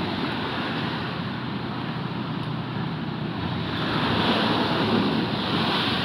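Rough storm surf breaking and washing up the shore in a continuous rushing, swelling louder as a bigger wave comes in about four seconds in.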